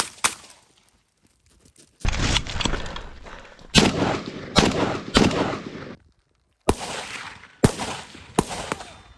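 Kalashnikov assault rifles firing: a couple of shots at the start, a dense run of shots in the middle, then three single shots about a second apart near the end.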